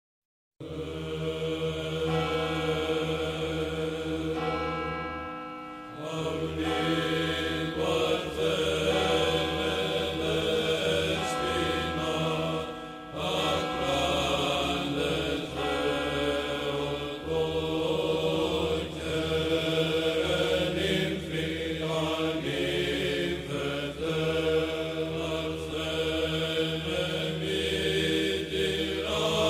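Byzantine-style Orthodox chant: voices singing a slow melody over a steady, low held drone. It starts about half a second in.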